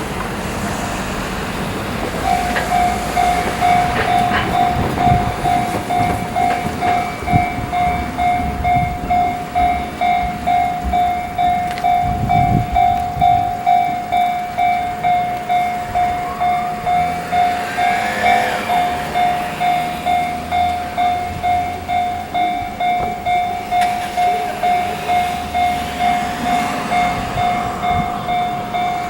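Japanese level-crossing alarm bell starting about two seconds in and dinging steadily, about one and a half to two rings a second, as the crossing closes for a train. Low rail rumble from a train moving runs beneath it, with a brief rising squeal about two-thirds of the way through.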